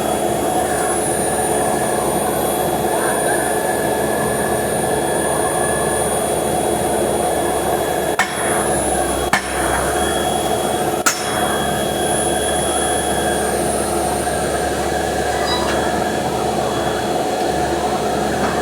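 Drilling rig machinery running, a steady mechanical din with droning tones. Three sharp clicks or knocks come near the middle.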